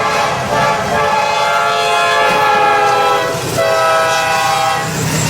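Train horn sounding several notes at once in long blasts, with short breaks between them and a shift in pitch about three and a half seconds in, over the noise of the train running.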